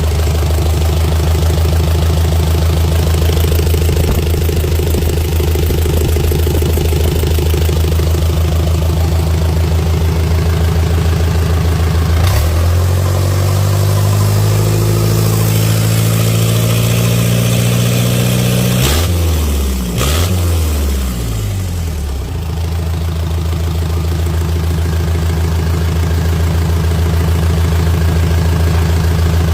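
Diesel engine idling with a steady low drone; a little under halfway through, after a click, its speed climbs gradually for several seconds, then with a couple of clicks drops and surges briefly before settling back to a steady idle.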